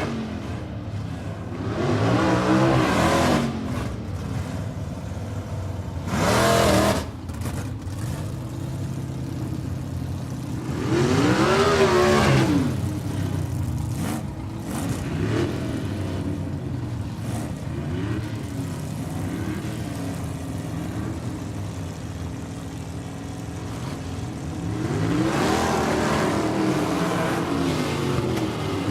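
Motorcycle engine idling steadily and revved up and back down four times, with a short sharp blip about a third of the way in and a longer rev near the end.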